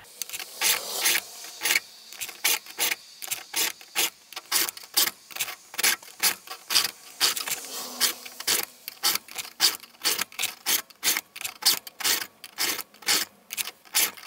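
Round chainsaw file in a file holder being pushed forward across the cutters of a Stihl .325 chain held in a vise, sharpening them. Short metal-on-metal rasping strokes in a steady quick rhythm, roughly two to three a second.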